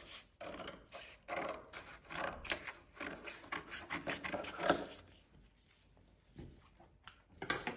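Scissors cutting through a folded sheet of paper in a series of rasping snips, about two a second, lasting about five seconds.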